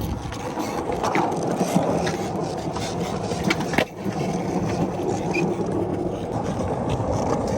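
Skateboard wheels rolling over pavement with a steady rumble, with a few sharp clacks from the board.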